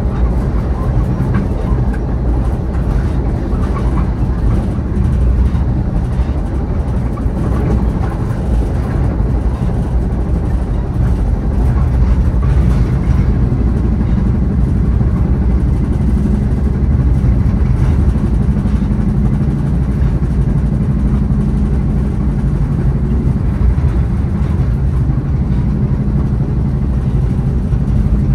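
Caltrain passenger train running between stations, heard from on board: a steady, loud low rumble with a humming drone.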